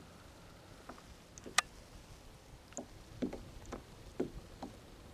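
A handful of short, irregular knocks and taps on a kayak, the sharpest and loudest about a second and a half in, the rest bunched in the second half.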